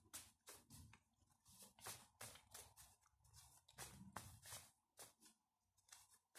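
Tarot cards being shuffled by hand: a faint run of irregular, crisp card clicks and rustles.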